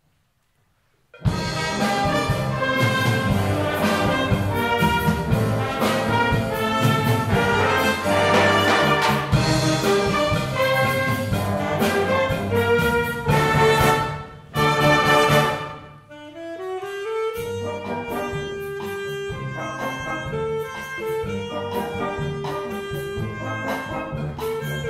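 Wind band playing a brass-led Cuban-style jazz number, with trumpets, trombones and saxophones over a bass rhythm. After about a second of silence the full band comes in loudly. Around sixteen seconds in it thins to a lighter passage that opens with a rising slide into held notes.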